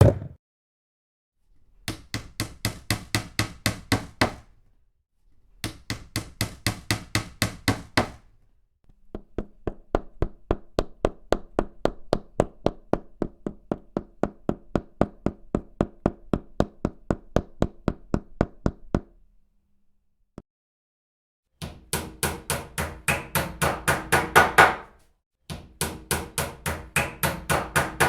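Hammer striking repeatedly in quick, even runs of blows, about four or five a second, with short pauses between runs. The longest run, in the middle, lasts about ten seconds.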